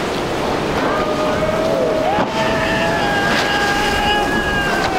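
Twin Suzuki 200 hp outboard engines running at speed. Their steady whine steps up in pitch about two seconds in, over a rush of wind and water spray from the hull cutting through chop.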